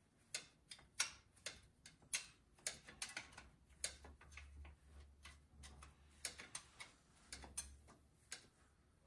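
Irregular sharp clicks, about two a second, from hand work on the 1970 Ford F250's seized distributor as it is being freed up.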